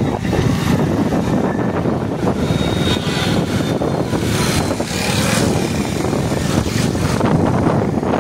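Motorcycle running at road speed, heard from the moving bike: a steady engine hum mixed with rushing wind and road noise.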